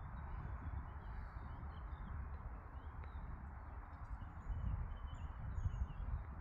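Birds chirping briefly now and then over a steady low rumble and hiss of outdoor background noise.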